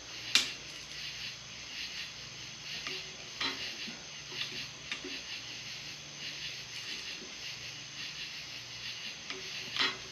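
Hand tools working bolts on an engine block being torqued to spec: a sharp metallic click about half a second in and another near the end, with faint scattered ticks and taps in between.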